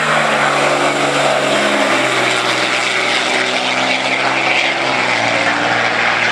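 Two turbo-diesel pickups, a Dodge Ram with a 6.7 Cummins inline-six and deletes and a Ford with a 6.0 Powerstroke V8, running at full throttle down a drag strip. Their engines make a loud, steady drone with a hiss over it.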